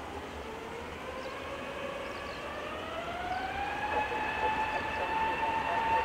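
Airbus A320-family airliner's twin turbofan engines spooling up to takeoff thrust: a whine that rises in pitch over the first few seconds, then holds steady as it grows louder.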